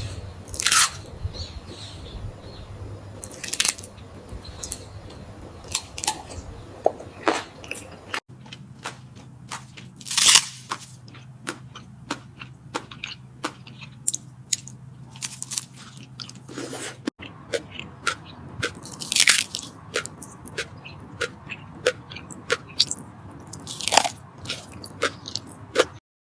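Close-up eating sounds of salmon being bitten and chewed: irregular wet mouth smacks and crunchy bites. The background changes abruptly twice as one clip cuts to the next, and the sound stops suddenly just before the end.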